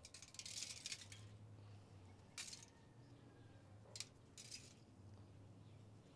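Quiet handling sounds: a few short, soft crinkles of aluminium foil as raw fish fillets are laid onto it, a cluster in the first second and then single ones spaced out.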